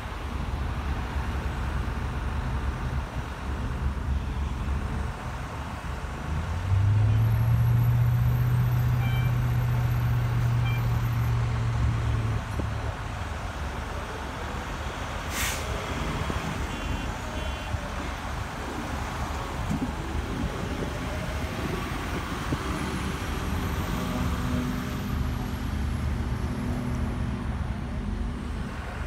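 Fire engine's diesel engine running as the truck pulls out, turns and drives away, with a loud, low, steady tone for about six seconds near the start.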